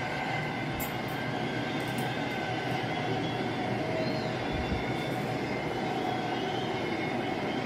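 Steady stadium crowd noise from a football broadcast, heard through a television speaker, holding at an even level.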